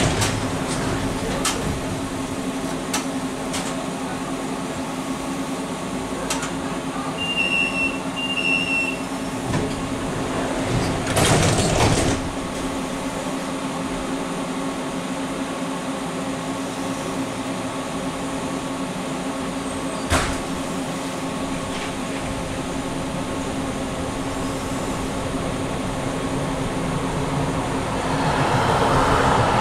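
Inside an NGT8B tram: a steady electrical hum with two short high beeps about seven and eight seconds in. A brief louder rush of noise comes around eleven seconds in and a single click around twenty seconds in. Near the end the running noise swells as the tram gets under way.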